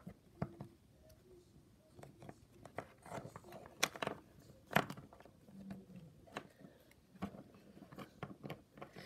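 Small plastic toy figurines handled and knocked against a desk: scattered clicks and taps, the sharpest about four and five seconds in.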